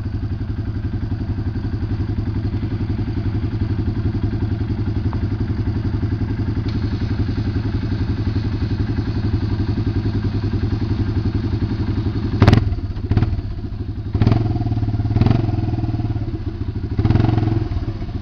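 Quad ATV engine idling steadily, with about five sharp knocks and thuds in the second half, the later ones coming with brief rises in the engine sound.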